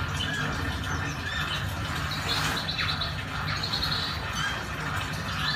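Small birds chirping and calling, with two rapid trills of repeated notes in the middle, over a steady low rumble.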